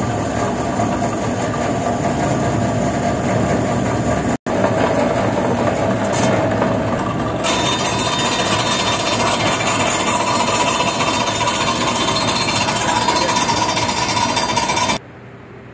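Non-woven fabric roll cutting machine running loudly and steadily: a steady hum over a dense mechanical hiss. It drops out for an instant about four seconds in and stops abruptly near the end, leaving a faint low hum.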